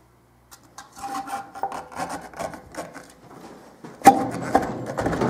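Motorcycle rear sprocket carrier being twisted and worked down onto the wheel hub's cush drive: quick scraping and rubbing strokes, then a sharp knock about four seconds in and a lighter one just after as it drops into place.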